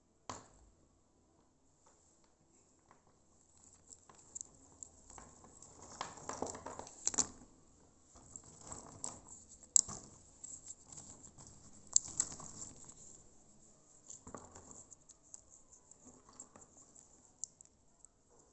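Dry split areca nuts clicking and rattling against each other as a hand stirs and picks through a heap of them. The handling comes in irregular bursts of scraping and clatter with a few sharp clicks.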